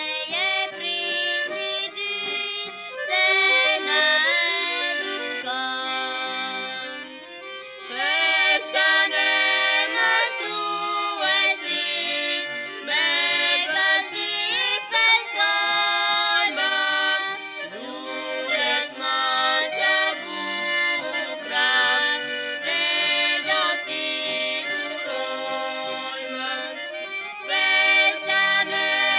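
A girl and a boy singing a song together, with instrumental accompaniment.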